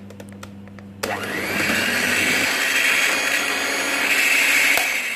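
A few light clicks, then about a second in an electric hand mixer starts and runs steadily, its twin steel beaters whipping thick cream in a glass bowl. The cream is whipped well but not yet at stiff peaks.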